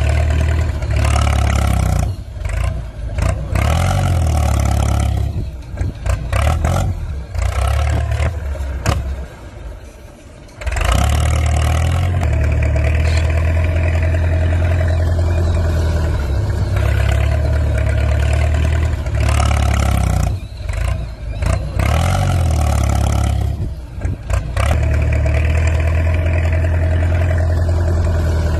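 Steady engine sound of a remote-control toy tractor running as it tows, with a low, even hum and a higher tone over it. It drops away briefly several times, most deeply about ten seconds in, then picks up again.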